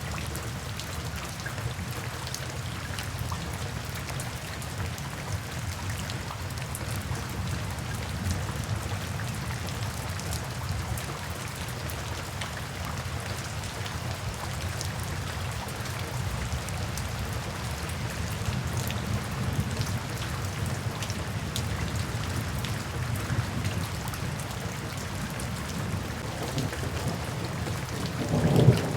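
Steady rainfall with individual drops pattering, over a low rumble. Near the end a louder low rumble swells up as a roll of thunder begins.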